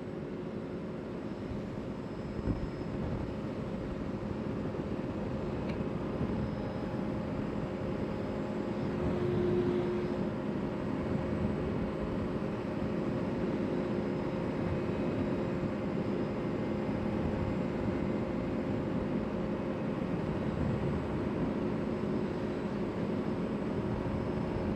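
CFMoto CForce 800 ATV's V-twin engine running steadily while the quad is under way, a steady hum under a rushing noise. There is a single knock about two and a half seconds in, and a slight swell in the engine sound about ten seconds in.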